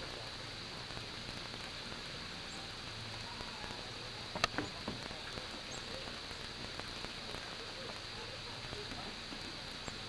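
Steady outdoor hiss with one sharp knock about four and a half seconds in, followed by a few fainter clicks.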